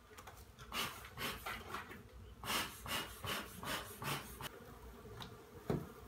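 Honeybees buzzing around a feral colony in an opened shed door. Over them comes a run of short rasping strokes, about four a second, in two runs, then a single knock near the end.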